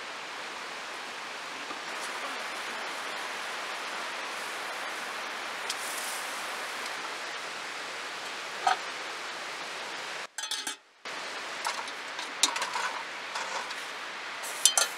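Metal camp cookware clinking: a pot and its lid are handled with a few light knocks in the second half, over a steady rushing hiss.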